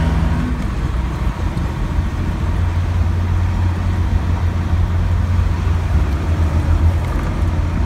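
Cummins diesel pickup engine running while the truck drives, heard from inside the cab as a steady low drone with road noise.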